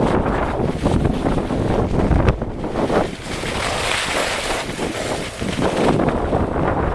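Wind buffeting the camera microphone while skiing downhill, with the rushing hiss of skis sliding over packed snow.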